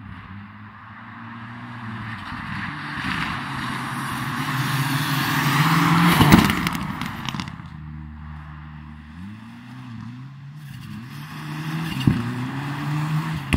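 Rally car engine at high revs, approaching and passing at speed with a rush of noise, loudest about six seconds in. The sound then falls away, the engine pitch dipping and climbing again as it accelerates off, and grows louder again near the end.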